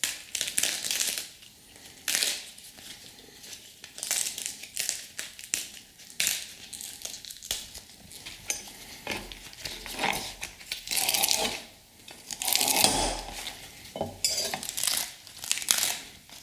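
Cavolo nero (black kale) leaves being torn by hand from their tough central ribs: a string of crinkling, ripping rustles, one after another.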